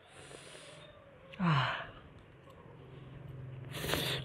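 A man breathing hard while eating spicy noodles. There is a breathy exhale, then a loud voiced sigh falling in pitch about a second and a half in, and a sharp rush of breath near the end. A few faint clicks of a fork against the plate come in between.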